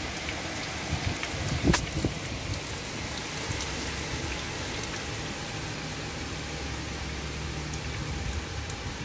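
Steady, heavy monsoon rain pouring down and pattering on surfaces, with scattered drips and one louder knock about two seconds in.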